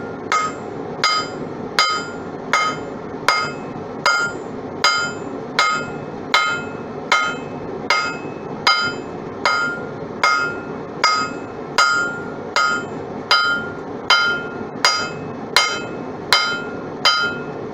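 Hammer striking hot steel on an anvil with light, evenly paced blows, about three every two seconds. Each blow leaves a short metallic ring. These are the gentle hits that forge-weld two pieces of steel together. A steady rushing noise from the forge runs underneath.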